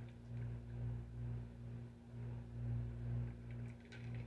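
A low, steady mechanical hum that swells and fades unevenly, with a few faint clicks near the end.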